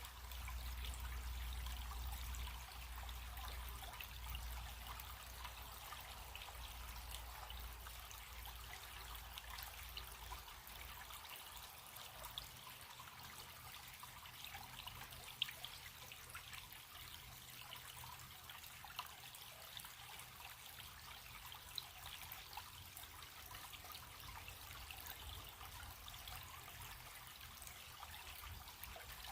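Small stream trickling over stones: a steady, faint water noise flecked with little splashes and drips. A low rumble underneath fades out about ten seconds in.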